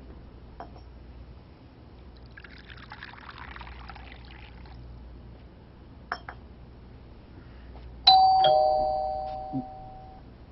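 Two-note doorbell chime about eight seconds in, a higher note then a lower one, ringing out and fading over about two seconds. Earlier, a few seconds of soft rushing noise like pouring liquid.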